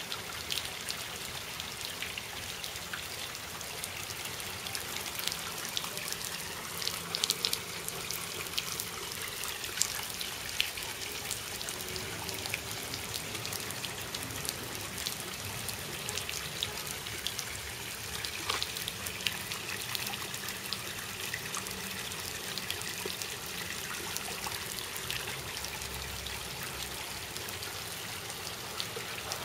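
Small lawn sprinkler spraying water onto wet pavement: a steady hiss of spray and pattering, with scattered short clicks and splashes.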